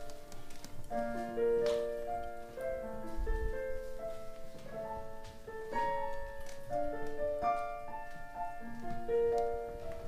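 Electric stage piano playing a song's introduction: a slow run of chords and broken-chord notes, each note held before the next.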